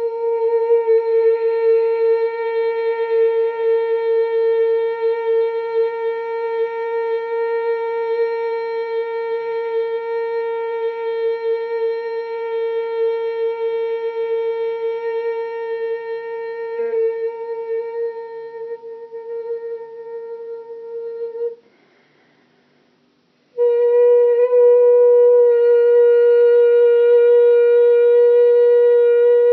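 A woman's voice toning one long, steady, high note, fading slightly before it breaks off about twenty seconds in. After a pause of about two seconds the same note is taken up again and held.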